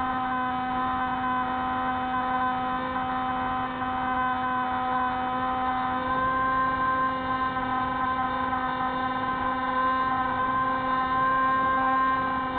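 Spyhawk FPV model plane's electric motor and propeller running steadily, a constant-pitch hum-whine with only slight wavering in level.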